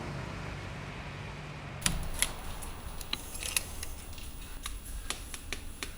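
Small hard pieces tapping and clicking at a work table during mosaic work: a quiet hiss, then from about two seconds in a string of irregular sharp clicks.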